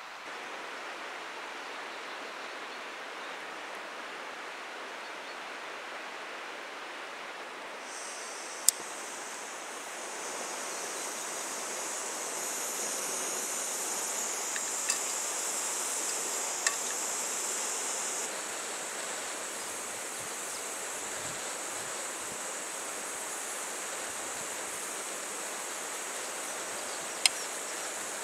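Steady rushing water noise from a river or stream, with a high, even insect drone joining about a quarter of the way in. A few sharp clicks and clinks stand out above it.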